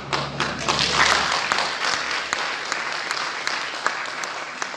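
Audience applauding, a dense patter of many hands clapping that swells in the first second and slowly dies away toward the end.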